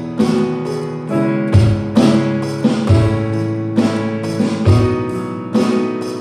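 Drum kit played along with a recorded guitar-led song: kick drum thumps and cymbal or snare hits land over sustained guitar chords.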